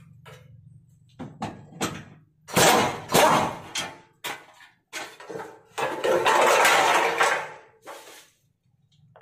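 Metal clinks, then loud clattering and a longer scraping rattle as a car's steel under-engine cover is worked loose and taken off.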